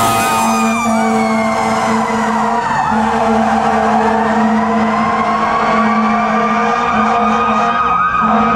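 Fire engine's sirens as it passes: an electronic siren yelping rapidly, over a mechanical siren whose pitch winds down over the first few seconds and then slowly climbs back up. A steady low tone runs underneath, breaking briefly twice.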